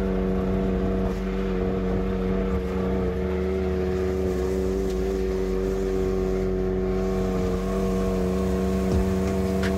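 Side-by-side UTV engine running at a steady pitch while cruising at a constant speed.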